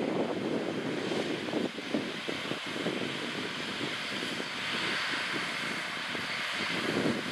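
A John Deere S680 combine harvesting wheat, with a John Deere 9360R 4WD tractor and grain cart running alongside: a steady drone of diesel engines and threshing machinery, with a hiss that swells a little around the middle.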